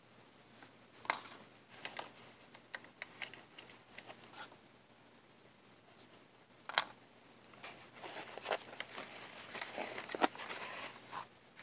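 Small clicks and taps from handling a plastic HO-scale model locomotive, with one sharper click about two-thirds of the way in. Near the end comes a soft rustling of a packing-foam sheet being handled, mixed with small clicks.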